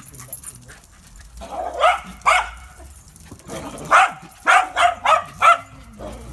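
A small dog barking: two barks about two seconds in, then a quick run of five barks about four seconds in.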